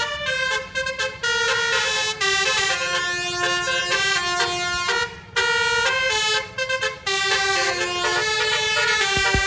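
Basuri 'telolet' multi-tone bus air horn playing a melody in stepped notes, with brief breaks about five and seven seconds in.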